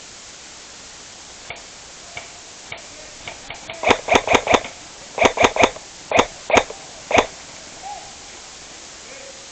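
Airsoft guns firing: a few faint single shots, then two quick strings of loud shots about five a second, followed by three single shots.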